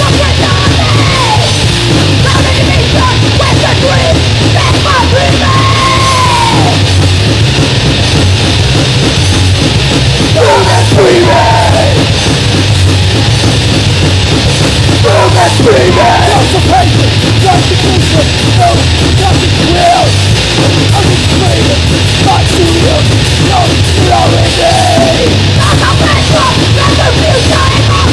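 Crust punk song with distorted guitars, distorted bass and fast drums, overlaid with screamed vocals.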